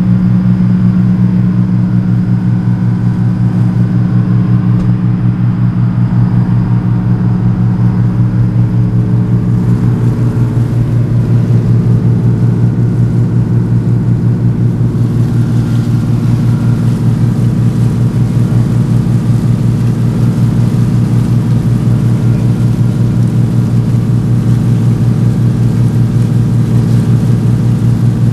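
Ferry's engine running under way, a loud steady low drone; its tone shifts about ten seconds in.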